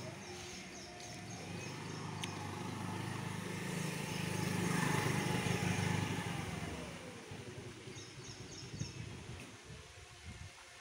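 A motor vehicle passing by, its engine getting louder to a peak about five seconds in, then fading away and dropping in pitch.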